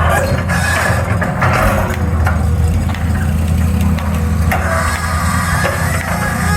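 Excavator's diesel engine running steadily under load, with a few brief knocks from the digging.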